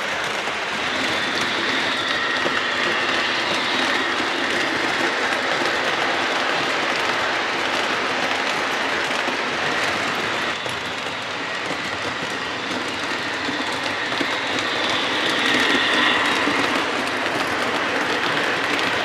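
MTH O-scale model train, Long Island Rail Road DD1 electric locomotives pulling passenger cars, rolling along the track with a steady rumble and clatter of wheels on rail. A high whine comes in twice, from about a second in and again around fifteen seconds.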